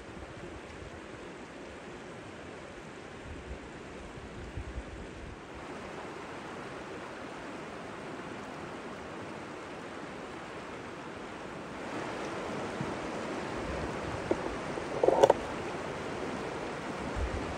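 River water rushing steadily over rocks, getting louder about twelve seconds in, with one brief louder sound about fifteen seconds in.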